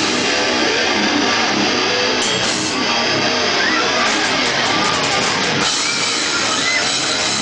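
Live deathcore band playing at full volume: distorted electric guitars and a drum kit in a dense, unbroken wall of sound, heard from inside the crowd.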